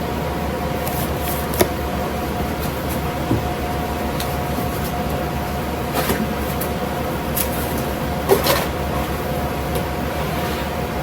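Toy packaging being handled: a few short clicks and rustles of cardboard and plastic parts, about 1.5 s, 6 s and 8 s in, over a steady room hum.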